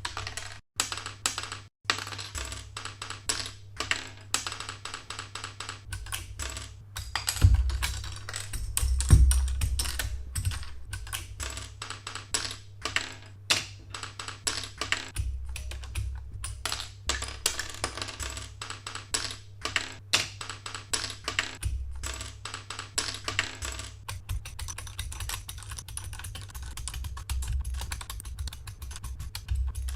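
Rapid, dense clicking of mechanical keyboard keys and keycaps, over background music with a low bass.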